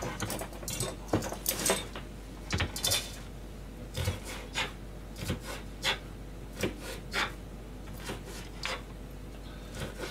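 Kitchen knife and hands working on a plastic cutting board: irregular sharp knocks and clicks, a few a second, as food is cut and moved about.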